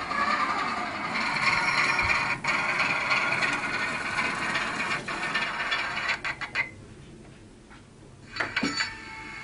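Model railway train running on an exhibition layout, its small electric motor and gears whirring steadily. The whirr drops away about two-thirds of the way in, among a quick run of sharp clicks, and a few more clicks follow near the end.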